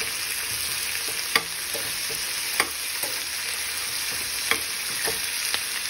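Onions and tomatoes sizzling in hot oil in a frying pan while a spatula stirs them, knocking sharply against the pan about five times.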